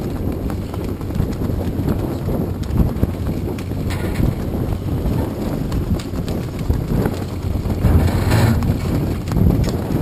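Wind buffeting a GoPro camera's microphone: a heavy, steady low rumble with irregular small knocks, and a louder rush about eight seconds in.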